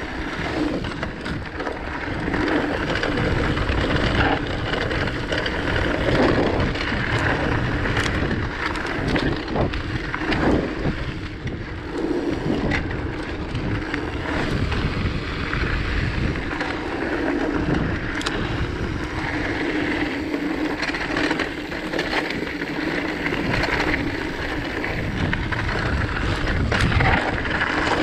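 Rockrider mountain bike rolling over a rocky dirt singletrack: the tyres crunch over stones and the bike rattles and knocks over the bumps without letup.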